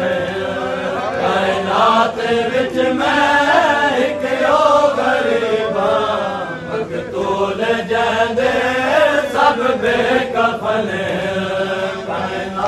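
Group of men chanting a noha (Muharram lament) together. The dull slaps of hands beating on chests (matam) cut through the chant.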